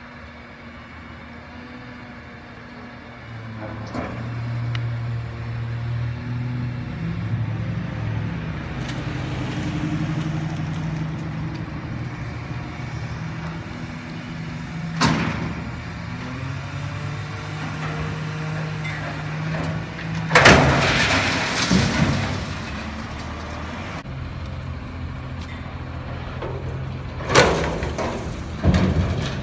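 Front-loading garbage truck's diesel engine revving to drive the hydraulics as its front arms lift a container of bulky junk over the cab. There is a sharp bang about halfway, a loud crashing clatter as the load is dumped into the hopper about two-thirds of the way in, and two more bangs near the end.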